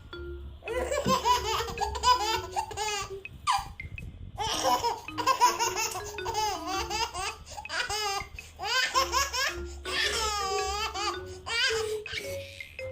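A baby laughing hysterically in high-pitched runs of giggles, several runs with short breaks between them.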